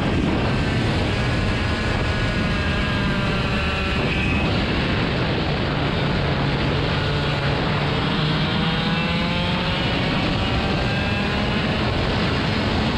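A vehicle engine running under a loud, steady rush of noise, with faint tones that slowly rise and fall in pitch.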